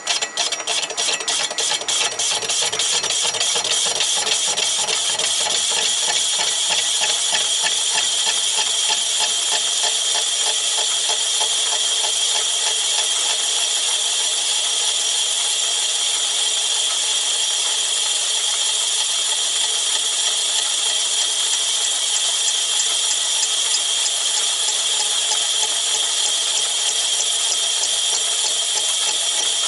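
Myford ML7 lathe starting up, with rapid knocks over the first two or three seconds that merge into a steady run as the spindle comes up to speed. It is spinning a large cast flywheel bolted to the faceplate while a tool faces it, with a steady high-pitched hiss throughout.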